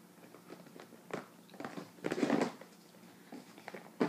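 Clear plastic bags of medicine crinkling and rustling as they are handled, in short scattered crackles with a louder crinkle about two seconds in.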